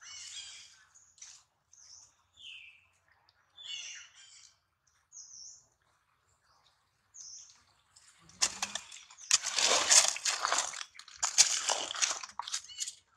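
Small birds chirping now and then, with short high chirps. About eight seconds in, a loud stretch of dense rustling and crackling of dry leaves lasts about four seconds, as macaques move over a leaf-strewn ground.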